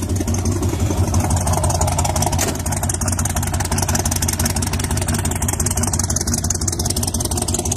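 Ford 460 big-block V8, bored .060 over with an RV cam and Hedman headers, idling steadily at the exhaust after a cold start. The idle is still too high for the rough-idle cam's lope to come through.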